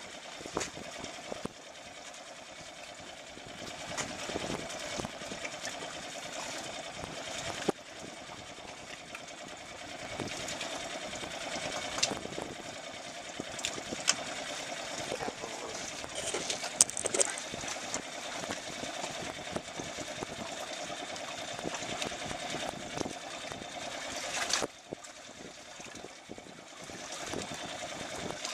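Fishing reel being cranked steadily, a rapid whirring of its gears, with a few sharp clicks. The cranking eases off for a moment near the end.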